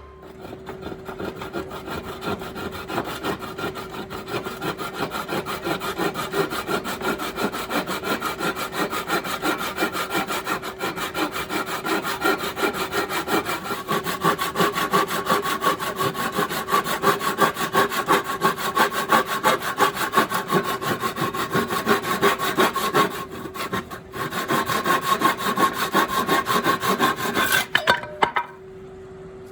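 Wood being sawn with a steady run of rapid, even strokes. The strokes break off briefly about 23 seconds in, then resume and stop shortly before the end, over a steady hum.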